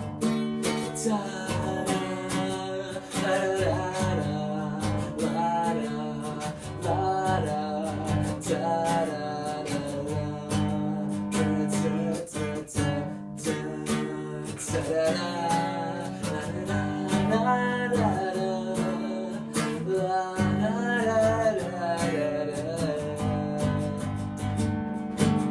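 An instrumental guitar solo: acoustic guitar strumming steady chords, with a melody line bending up and down over them.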